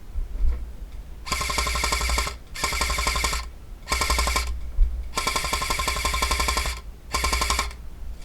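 Airsoft gun firing full-auto: five bursts of rapid rattling shots, each lasting about half a second to nearly two seconds, with a steady whine running through the firing.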